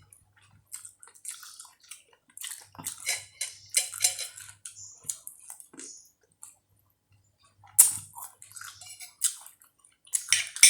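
Eating sounds: a spoon clicking and scraping against a plate, with wet sipping and chewing of vegetable soup and chicken feet, and a few sharper clicks in the second half.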